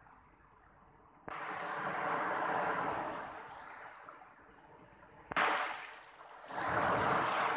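Small waves washing up onto a sandy beach, the surf hiss swelling and fading. It comes in suddenly about a second in, dies down, comes in abruptly again just past halfway, and swells once more near the end.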